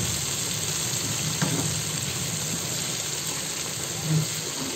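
Oil sizzling steadily in a frying pan as garlic and ginger paste and spice powders fry in it, a continuous bubbling hiss.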